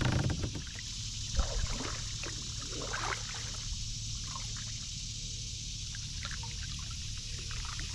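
Kayak paddle dipping into calm water, with water splashing and trickling off the blades in irregular spurts between strokes.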